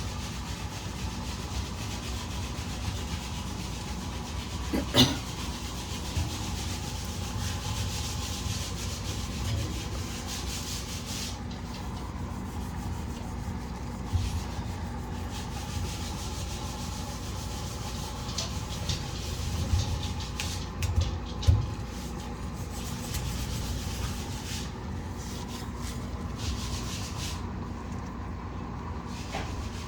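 Microfiber cloth scrubbing and wiping the inside surfaces of a fridge, a steady rubbing with a sharp knock about five seconds in and a few thumps around twenty seconds in.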